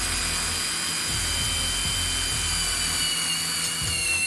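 Cordless DeWalt drill running steadily as its bit cuts a hole through a metal plate, with a steady high whine.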